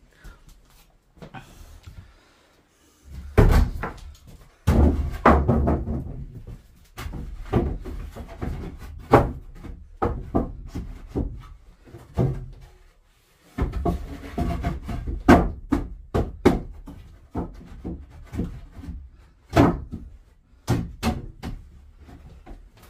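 Wooden planks being handled and laid into a wooden frame: irregular knocks and clatter of board on board, with heavier thuds as boards drop into place.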